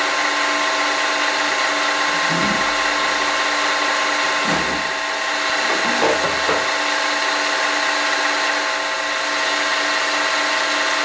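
Optimum MB4 mill-drill running a shell mill across the top of cast pillar blocks, surfacing the castings. It makes a steady machine whine of several held tones over the even hiss of the cut. The sound starts abruptly at full level.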